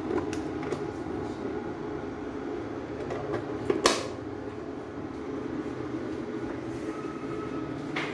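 A steady mechanical hum, with light clicks of a hand handling a plastic enclosure and one sharp tap about four seconds in.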